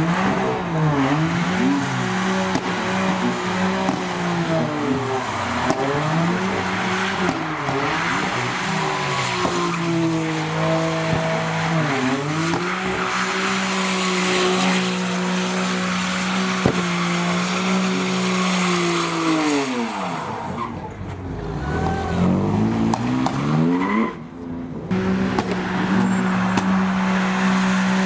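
A drifting car's engine held at high revs, its pitch dipping and climbing back several times, with tyres screeching continuously. About three-quarters through, the revs fall away and build again. Shortly after, the sound breaks off sharply for about a second before the high revs resume.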